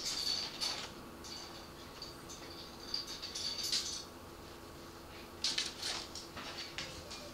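A cat pawing at a strip of wooden trim on top of a cabinet, making clusters of light taps and rattles of wood in three bouts with short pauses between.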